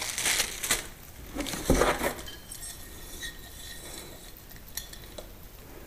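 Lamp parts being handled: plastic packaging rustling in the first couple of seconds, then small light clinks of hard parts.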